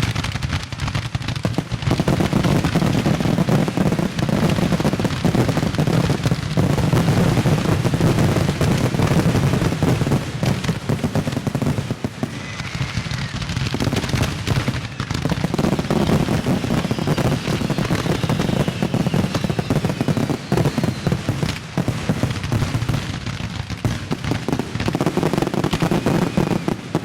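Aerial fireworks finale: a dense, nonstop barrage of shell bursts and crackling reports over a continuous low rumble of booms, with a few whistling rockets rising partway through.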